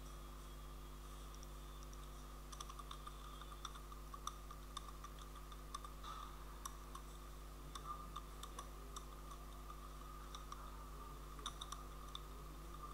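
Computer keyboard typing: faint, scattered keystrokes in short runs, over a steady low electrical hum.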